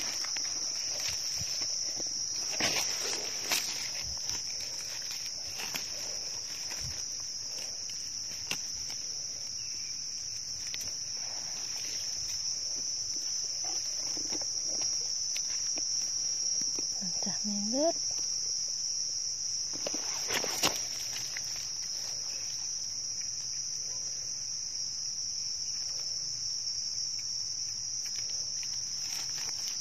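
Steady high-pitched drone of insects in the forest, unbroken throughout, with the crunch and crackle of dry leaf litter underfoot, loudest a few seconds in and again about twenty seconds in.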